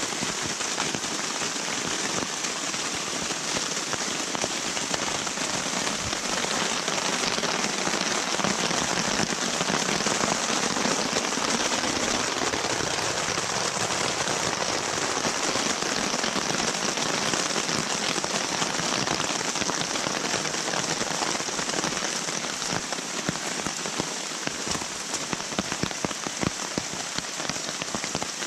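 Heavy rain falling steadily, pattering on a nylon tarp and tent fly. Near the end it thins into more separate, sharper drops.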